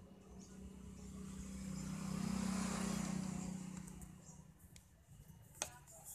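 A motor vehicle passing by: its engine sound swells to a peak about halfway through and fades away. A sharp click near the end.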